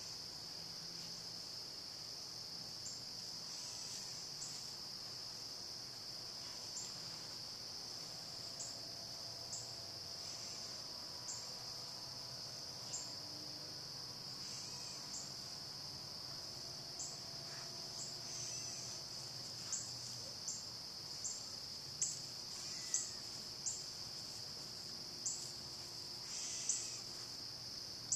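Steady high-pitched insect chorus, with short sharp chirps about once a second over it that become much louder in the last third.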